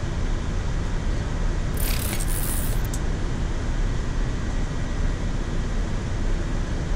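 Steady rushing airflow and air-conditioning noise on a Boeing 787-9 flight deck in flight, with a brief brighter hiss about two seconds in.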